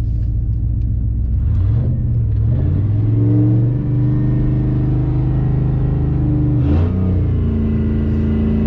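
A two-door Chevrolet Tahoe's engine pulling away under acceleration. Its pitch climbs between about 1.5 and 3 seconds in, then holds steady. It dips briefly near the end, as at a gear change, and then steadies again.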